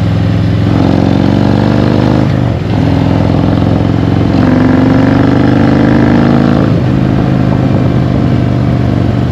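Harley-Davidson 2018 CVO Road Glide's Milwaukee-Eight 117 V-twin pulling hard under acceleration through custom headers on a stage one dyno tune. The engine note climbs steadily, dips briefly about two and a half seconds in and again near seven seconds at gear changes, and is loudest in between.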